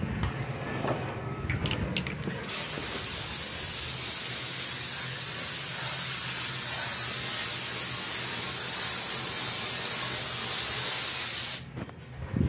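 Aerosol can spraying in one long continuous hiss of about nine seconds, starting about two and a half seconds in and cutting off sharply near the end. Before it come a few knocks and rustles.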